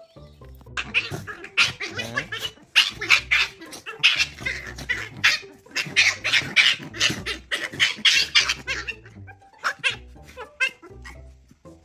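A puppy yapping and yelping in rapid, high-pitched cries while it play-fights with bigger dogs, over background music with a steady bass line.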